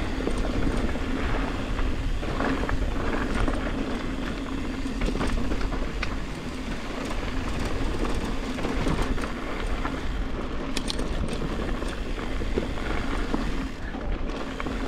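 Ibis Ripmo mountain bike rolling fast down loose, dusty dirt singletrack: a steady rush of tyres on dirt and grit, with a constant clatter of small knocks as the bike rattles over braking bumps.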